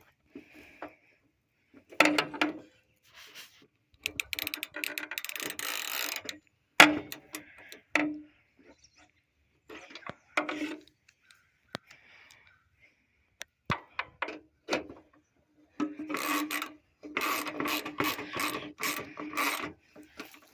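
Hand ratchet wrench clicking in bursts of rapid strokes as bolts and nuts are tightened, with a few sharp metal knocks in between.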